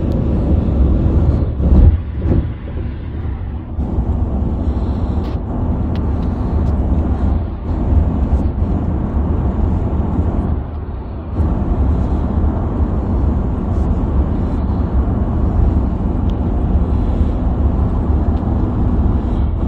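Steady low road rumble and engine hum inside a moving car's cabin at highway speed, dipping briefly a little after halfway.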